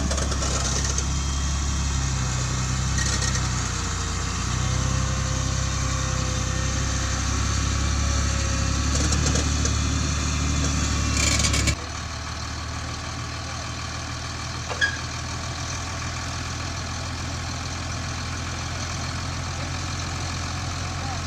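An engine running steadily at idle. About twelve seconds in, the sound changes abruptly to a slightly quieter steady hum, with a single short click a few seconds later.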